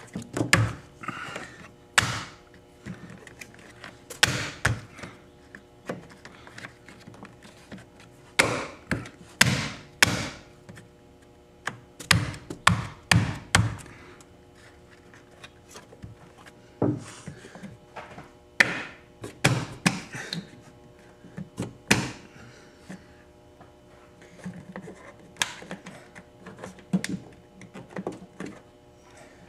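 Hands pressing and knocking a new plastic windshield cowl on a BMW E36 M3 down onto its push-in fasteners: irregular clusters of thunks and taps, a few very sharp, as the clips are worked into their holes.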